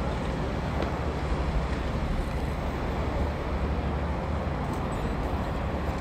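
Steady low rumble of city vehicle noise, with no separate events standing out.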